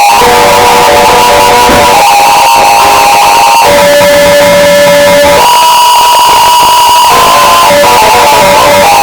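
Harsh noise music: a dense, distorted wall of noise at full volume, with held tones that jump to new pitches every second or two.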